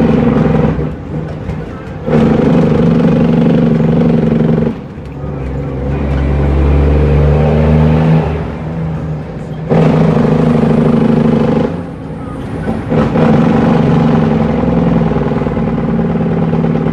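Cummins N14 inline-six diesel in an International truck, heard from inside the cab while driving. The engine note drops away and comes back several times, as the driver shifts through a 13-speed transmission.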